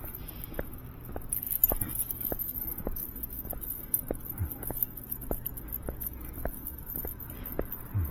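Metal dog-collar tags or leash hardware jingling with light, regular clicks about three times a second while a small dog moves on its leash.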